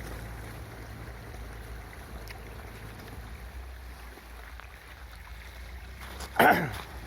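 Mahindra Scorpio S11 SUV being driven off-road, a steady low engine and road rumble with rough noise. About six seconds in, a short, loud sound sliding sharply down in pitch stands out above it.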